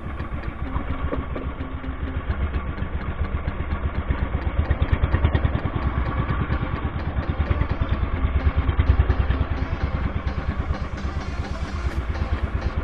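Small motor of an outrigger boat running steadily, with a fast, even chugging beat.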